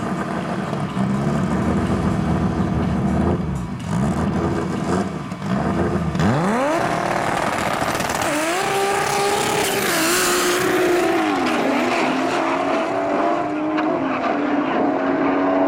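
Toyota hatchback and BMW sedan drag cars revving their engines in bursts at the start line, then launching about six seconds in. The engine note climbs steeply and steps through several upshifts as the cars pull away down the strip.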